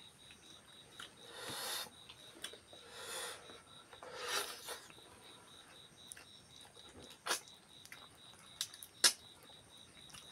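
Close-miked eating by hand: wet chewing and lip-smacking clicks, with three breathy swells of noise in the first half.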